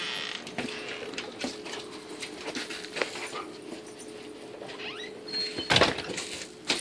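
A dog moving about on a snow-dusted wooden deck: scattered light clicks and scuffs, with a louder thump about six seconds in.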